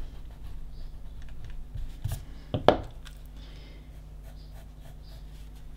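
Rubber eraser rubbing on paper and pencil lead scratching across it as a line is drawn, with two sharp knocks about two and two-and-a-half seconds in, the second the loudest. A low steady hum runs underneath.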